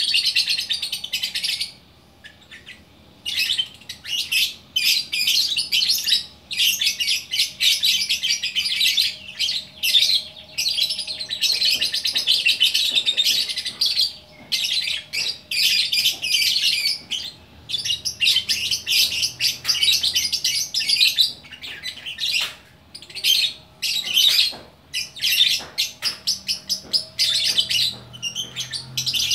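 Lovebird singing in long, rapid runs of high chirps that break off briefly a few times.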